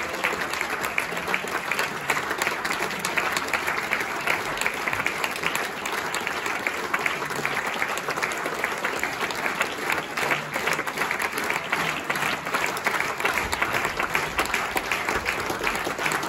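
Theatre audience applauding, a dense, steady patter of many hands clapping.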